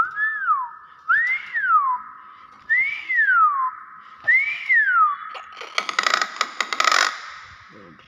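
Common hill myna whistling four clear notes about a second and a half apart, each rising then falling in pitch. About six seconds in comes a short burst of harsh, crackling noise.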